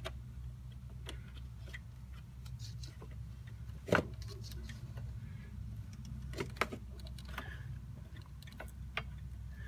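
Scattered light clicks and taps from handling a borescope as its probe is worked down a spark plug hole, with one louder knock about four seconds in, over a steady low hum.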